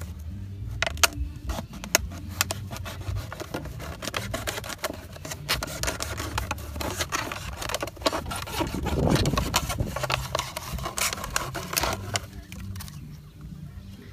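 Knife blade cutting through a thin plastic drinks bottle, the plastic crackling and clicking as it is sawn and bent: a dense run of sharp clicks and scrapes that thickens in the middle and stops near the end.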